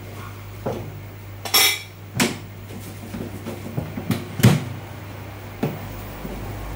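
Kitchen dishes and utensils being handled: several separate clinks and knocks, the loudest about one and a half, two and four and a half seconds in, over a steady low hum.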